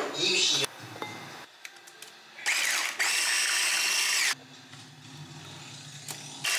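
Electric hand mixer running with a steady whine, beating cooled custard in a stainless steel pot for the tiramisu cream; it starts about two and a half seconds in and stops abruptly under two seconds later.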